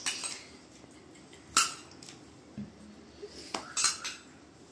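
A metal spoon clinking against a small stainless steel bowl: a few sharp, brief clinks, with a quick cluster near the end.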